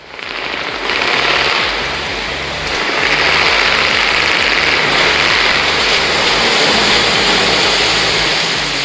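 Nissan Condor dekotora truck's diesel engine with a maniwari (split-manifold) exhaust, rumbling with a low pulsing throb as the truck rolls slowly across the lot. Steady rain hisses on the wet pavement underneath.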